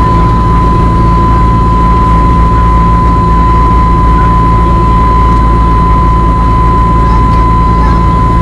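Airliner cabin noise in an Airbus A321neo in flight, heard at a window seat by the wing: the steady low rumble of its CFM LEAP-1A turbofan engines and airflow, with a steady high whine.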